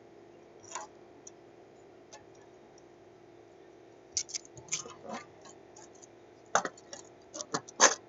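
Smith & Wesson Model 1 steel handcuffs clicking and clacking as they are handled and worked off the wrist. A few faint clicks come first, then quick runs of sharper metal clicks from about halfway, the loudest near the end.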